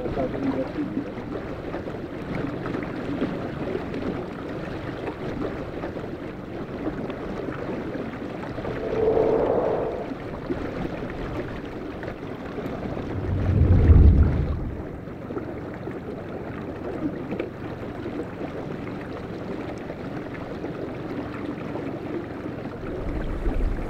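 Steady open-water ambience of moving water and wind. A swelling whoosh comes about nine seconds in, and a deep low rumble builds to the loudest point about fourteen seconds in.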